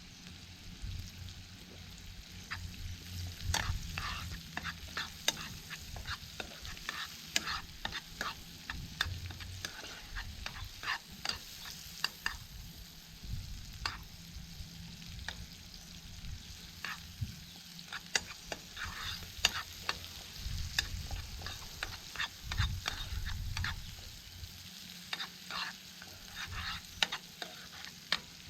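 Food sizzling in a pan over a campfire, with many sharp, irregular crackles and clicks.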